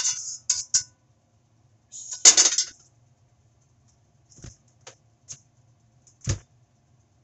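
A thick, one-piece iron frying pan scraped briefly, then set down on the gas stove with one loud metallic clatter about two seconds in. A few light knocks and low thumps follow.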